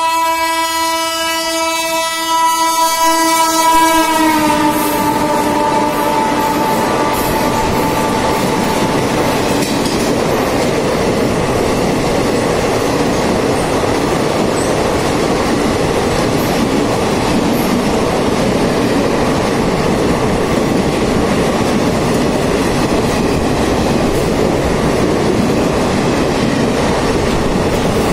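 Passenger express train sounding a long, loud multi-tone horn as it runs through at speed without stopping. The horn's pitch drops a few seconds in as the locomotive passes, then fades out. After that comes the steady rush and clatter of the coaches going by at speed.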